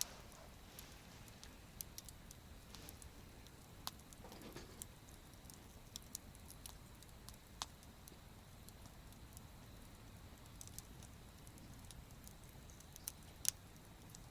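Wood campfire crackling faintly, with scattered sharp pops at irregular intervals, the loudest near the end.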